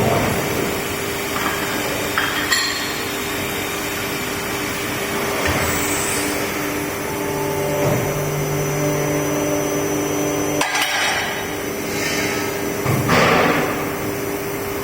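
800-ton cold forging hydraulic press running: a steady hum from its hydraulic power unit, joined by a lower steady tone for a few seconds in the middle. Several sharp metallic knocks and clanks sound over the hum, the loudest about eleven seconds in and another about two seconds later.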